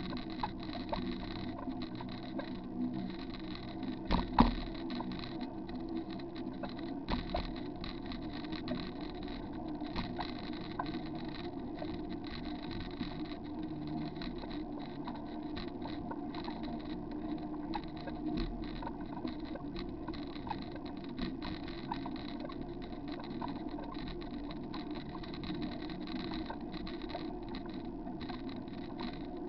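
Bicycle rolling along a wet concrete path, heard from a bike-mounted camera: a steady rumble and hiss of tyres and wind, with frequent small knocks and rattles and one louder knock about four seconds in.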